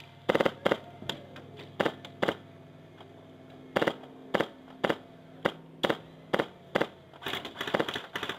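Airsoft rifle firing single shots, about two a second, with a pause a few seconds in and a quicker, quieter string of shots near the end.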